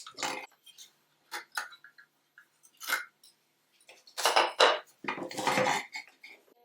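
Clinking and clattering of metal carriage-lamp parts and glass panes being handled and set down: irregular knocks with a few short ringing clinks, the loudest clatter in the second half.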